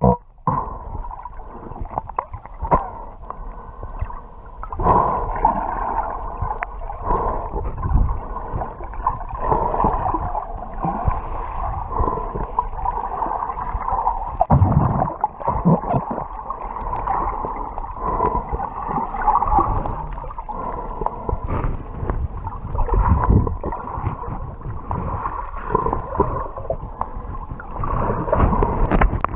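Muffled, churning water noise picked up by a camera held underwater, with irregular knocks and swishes as the housing moves through the water.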